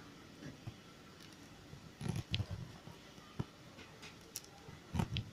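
Aari hook needle piercing and pulling thread through stretched fabric while chain-stitching: faint scattered taps and soft thuds, with a cluster about two seconds in and another near the end.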